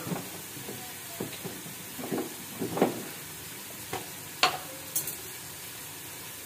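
Spiced onion-and-oil masala sizzling steadily in a pan on the stove, with several sharp spoon knocks and scrapes against the pan in the first five seconds while salt goes in and is stirred.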